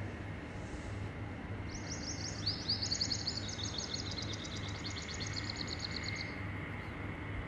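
Small birds trilling, overlapping runs of rapid high chirps lasting a few seconds, over a steady low background hum.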